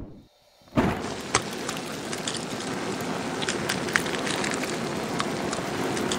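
A seed burning: a steady crackling hiss that starts suddenly about a second in, with sharp pops scattered through it, the loudest near the start and about four seconds in.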